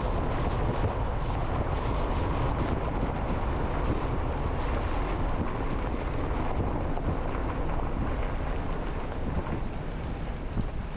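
Jeep driving: steady engine and road noise with wind buffeting the microphone, easing off slightly near the end.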